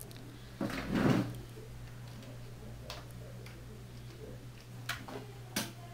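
A few sharp computer mouse clicks over a steady low electrical hum, with a brief rustle about a second in as the loudest sound.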